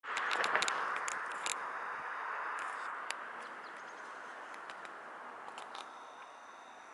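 Outdoor ambience over a city seen from above: a steady hiss of distant noise that slowly fades, with scattered short, sharp high ticks, most of them in the first second and a half.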